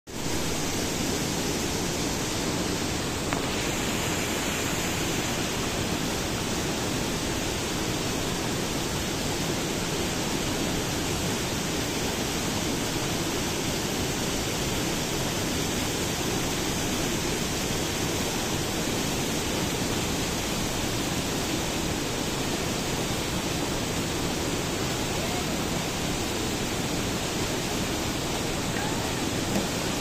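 Waterfall: white water pouring steadily over rocks into a pool, an even rushing noise.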